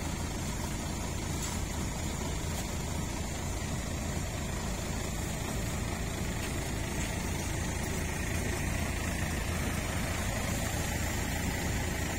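A heavy engine idling steadily, a continuous low running sound with no change in speed.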